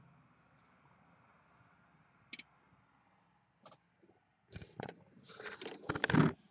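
Camera handling noise inside a car: a few scattered sharp clicks, then a run of rustling, clicks and knocks from about two-thirds of the way in, loudest near the end, as the camera is moved and handled.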